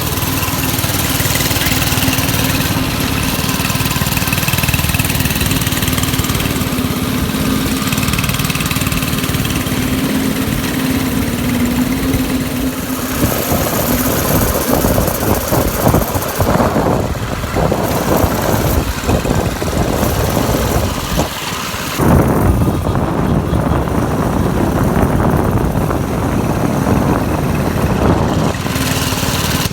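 Go-kart's small gasoline engine running while the kart drives along a dirt road. The engine note holds steady for about the first dozen seconds, then turns rougher and more uneven, surging and dipping.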